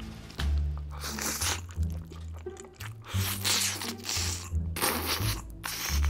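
Close-miked eating sounds: several short, bursting bouts of slurping and chewing as a woman eats from a bowl and then drinks from it. Background music with a low bass line plays underneath.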